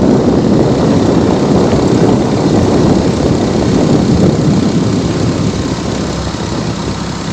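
A vehicle engine running steadily while under way, mixed with a rough, noisy rumble of travel; it gets slightly quieter near the end.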